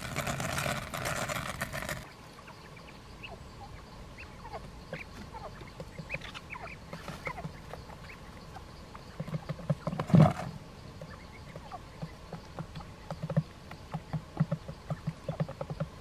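Rice grains poured from a bottle patter onto cardboard for about two seconds. Then quail peck at the grain, making a run of soft taps with one louder knock about ten seconds in, and short high chirps throughout.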